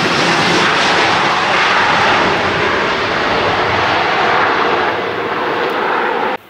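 Boeing 737's CFM56 jet engines running at high power in reverse thrust during the landing rollout: a loud, steady roar with a faint tone that sinks slowly. It cuts off abruptly near the end.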